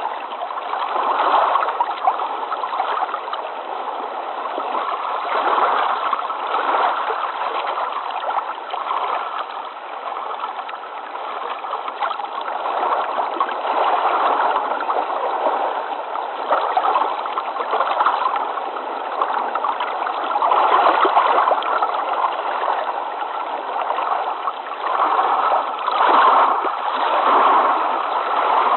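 Flowing water: a steady rushing of running water that swells and eases every few seconds, sounding somewhat muffled.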